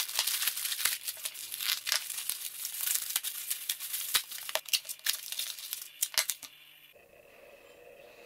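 White plastic mailer slit and torn open, then bubble wrap crinkled as it is pulled off, with many sharp crackles. The crinkling stops about six and a half seconds in, leaving a faint steady hum.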